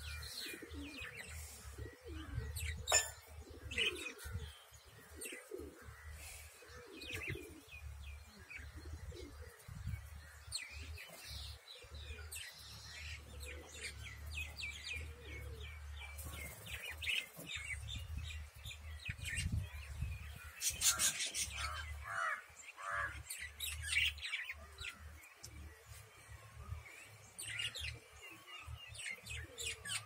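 Flock of budgerigars chirping and chattering: many short, overlapping chirps throughout, busiest about two-thirds of the way through.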